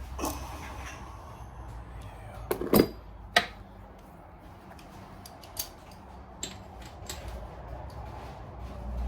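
Metal engine parts and tools clinking and knocking on a workbench: a few sharp knocks close together about two and a half to three and a half seconds in, then a couple of lighter clicks, over a low steady hum.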